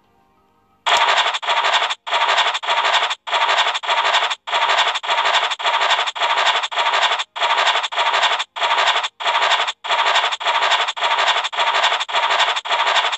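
Scratching sound effect of an online scratch-card game, one short scrape for each square as the squares are uncovered in turn, about two a second, starting about a second in.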